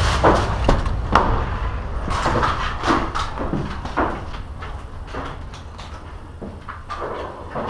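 Irregular knocks, scuffs and rustling of footsteps and gear as a player moves through a building, over a steady low rumble of handling noise on a body-worn camera.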